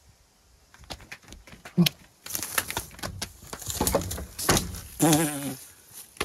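Knocks and swishing as a man swats at wasps with a work glove, with short wavering vocal cries from him, the longest about five seconds in.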